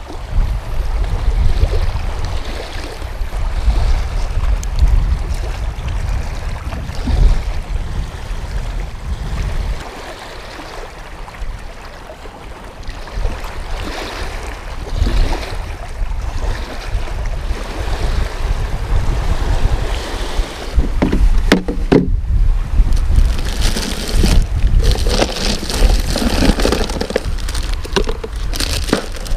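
Wind buffeting the microphone over waves splashing against a rocky lakeshore, with small clicks of fishing tackle being handled. Near the end, louder rustling from handling bagged bait.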